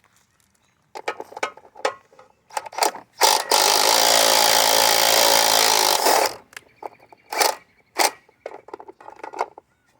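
A power tool runs steadily for about three seconds and then stops abruptly. Sharp metallic clicks and knocks from working on the air conditioner's parts come before and after it.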